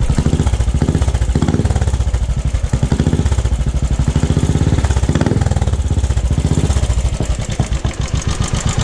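Royal Enfield Classic 500 single-cylinder engine running through a newly fitted aftermarket Pipes Garage exhaust, with a steady fast low pulse at idle and a few short throttle blips that swell the exhaust note, in the first five seconds or so.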